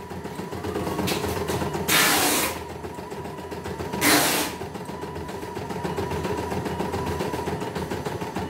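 CNY E900 computerised embroidery machine stitching a test design, its needle running in a fast, steady rhythm. Short loud bursts of hiss break in about two and four seconds in.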